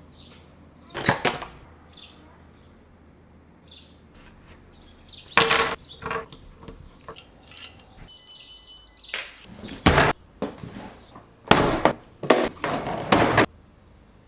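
Handling noises of unboxing a charging cable: a series of sudden knocks, clatters and rustles as the packaging and product are handled, loudest in a run of knocks near the end. A brief cluster of high, steady electronic tones sounds about eight seconds in.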